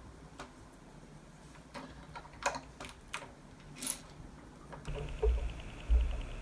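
Plastic LEGO bricks clicking as hands fit pieces together, a few separate sharp clicks. From about five seconds in come heavier low thumps and rubbing against the tabletop as a hand sorts through the loose pieces, with a faint fast ticking.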